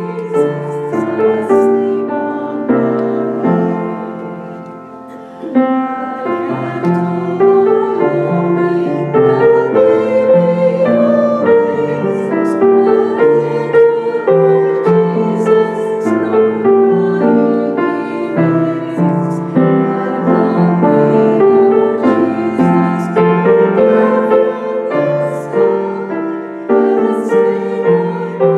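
Piano music. It dips in level about four seconds in and picks up again a second or so later.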